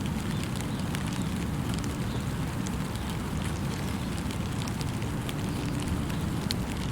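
Steady rain falling in a forest, a constant hiss with a low rumble beneath it and many separate drops ticking sharply on nearby surfaces.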